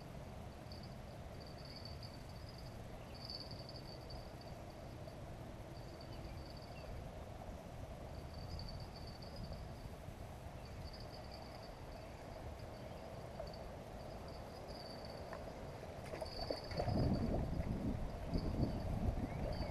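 Insects chirping in on-and-off pulses over a steady outdoor hush. About three-quarters of the way through, louder irregular splashing and rustling starts as a hooked fish is brought in and netted at the water's edge.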